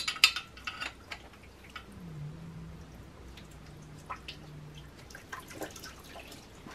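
Coolant dripping from the loosened water hoses of an SR20DET engine into a basin underneath, heard as sparse light drips and ticks.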